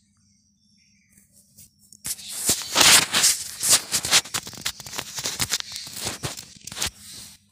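Wooden rolling pin rolling dough thin on a floured board: back-and-forth rolling strokes with rattling clicks, starting about two seconds in.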